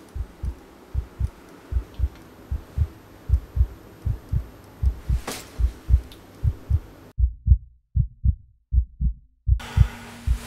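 Heartbeat on the film's soundtrack: low double thumps, lub-dub, a little more than once a second. A faint hiss behind it cuts out about seven seconds in and returns near the end, and a single sharp click comes about five seconds in.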